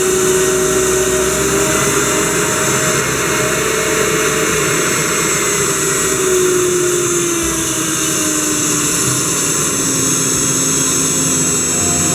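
Small DC motor spinning a fan, running steadily with a whirring hum whose pitch drifts slowly downward.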